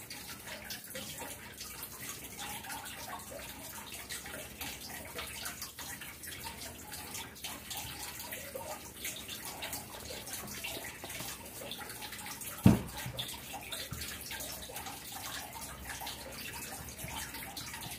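A stick stirring a thick mix of white paint and baking soda in a small glass jar: soft scraping and faint ticks against the glass over a steady hiss. One sharp knock comes about two-thirds of the way through.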